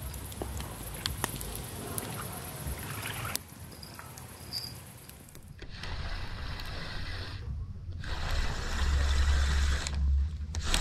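Spinning fishing reel being wound in on a feeder rod, with scattered small clicks and a heavy low rumble on the microphone that grows loudest near the end.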